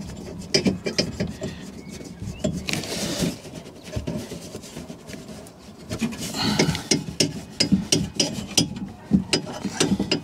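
Rubbing and rustling with scattered small clicks and knocks as a foam roller presses a self-adhesive sound-deadening pad onto the inside of a car door's outer metal skin, reached through the door behind its foam vapour membrane.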